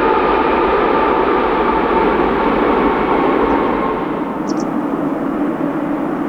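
Boeing 777-300ER's GE90 jet engines after landing: a steady loud rush with whining tones that slowly slide down, easing off about four seconds in as the engines spool down or the airliner moves away.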